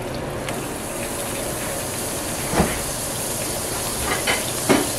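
Butter melting in hot oil and chicken drippings in a stainless-steel pan, sizzling with a steady hiss. Two sharp clicks come through it, one about halfway through and one near the end.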